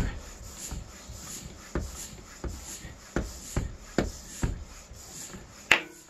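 Floor pump being worked in steady strokes, about two a second, inflating a tubeless tire. Near the end the tire bead pops once, sharply, onto the rim: the sign that the bead is locked in.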